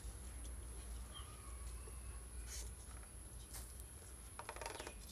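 Quiet outdoor background with a steady low rumble and a faint bird chirp. Near the end comes a quick run of light clicks from steel serving bowls and plates being handled during the meal.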